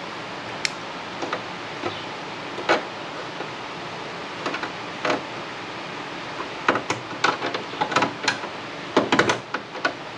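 Scattered clicks, taps and knocks of hand work on a rusty steel fender panel, sparse at first and coming thick and fast in the second half, over a steady background hiss.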